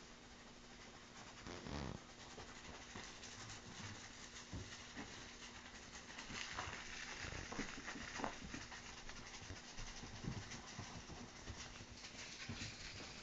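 Faint irregular handling noise, soft knocks and crackles with a light rustle of plastic, over a steady low hum and hiss.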